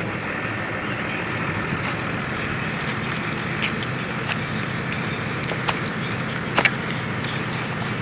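Engine running steadily, with a few sharp clicks, the loudest about two-thirds of the way through.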